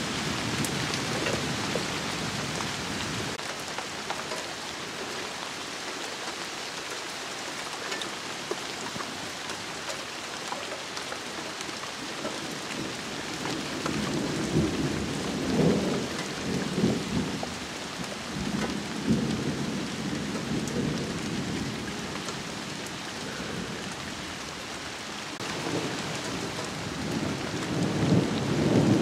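Steady rain falling on garden trees and leaves, with rolling thunder rumbling about halfway through and again near the end.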